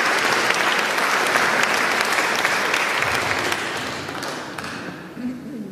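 Audience applauding, fading out about four to five seconds in.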